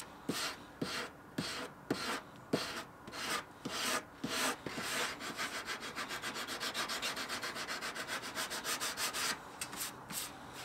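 Hand sanding a wooden tabletop's edge with sandpaper on a wooden sanding block, in back-and-forth strokes. Slower strokes with a light knock at each turn come first; about halfway through they give way to quicker, shorter strokes.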